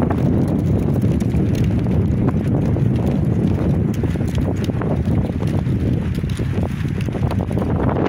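Wind buffeting the microphone: a loud, steady low rumble that rises and falls, with faint ticks of footsteps on concrete.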